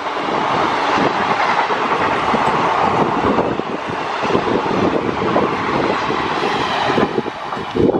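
Passenger coaches of an express train passing close by at about 96 km/h: a loud, steady rush of wheels on rail with a rapid, irregular clickety-clack of wheels knocking over rail joints.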